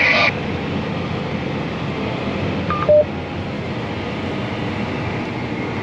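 Steady engine and drivetrain hum inside the cab of a John Deere 8R 370 tractor pulling a grain cart. About three seconds in, the cab display sounds a short two-tone alert beep, a higher tone then a lower one, as MachineSync and AutoTrac disengage.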